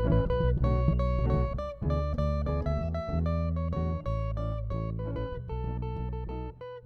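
Background music: a plucked acoustic guitar tune over a steady bass line.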